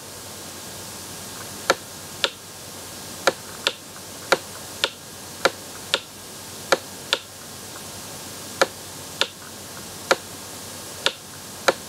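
Sharp, separate clicks, about fifteen at uneven spacing and often in pairs, made as each handwritten stroke is put onto a digital whiteboard, over a faint steady hiss.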